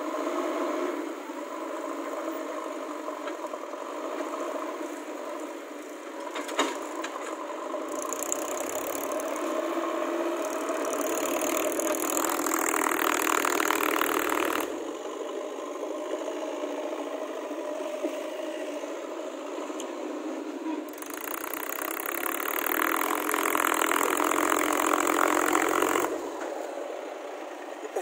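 Diesel engines of tractors and a backhoe loader running at a dig site. The sound swells louder for several seconds twice, about eight seconds in and again after twenty seconds.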